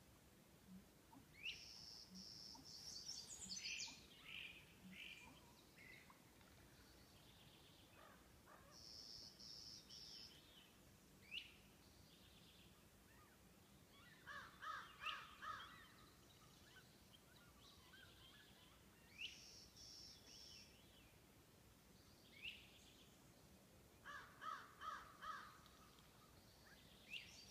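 Songbirds singing faintly, with several kinds of repeated short phrases: sharp rising notes, a high buzzy trill, and a lower stuttering phrase heard twice, about ten seconds apart.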